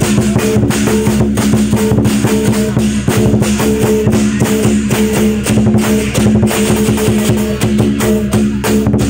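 Lion dance percussion band playing loudly: a big drum beaten in rapid, dense strokes under ringing, clashing cymbals and gong.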